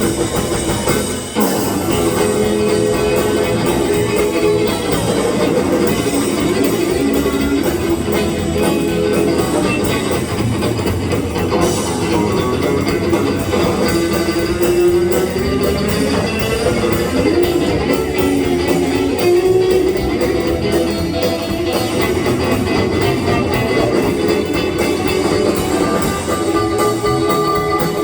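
Live band playing an instrumental break of an upbeat boogie: a guitar carries the melody over bass and drums.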